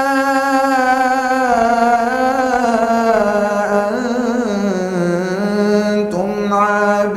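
A man recites the Quran in melodic tajweed style, holding long drawn-out notes. The pitch steps down over the first few seconds, wavers in an ornament about four seconds in, then rises again near the end.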